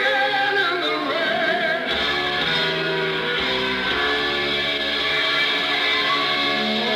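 Live hard rock band performing, with a lead line sliding up and down in pitch in the first couple of seconds, then held notes over sustained chords.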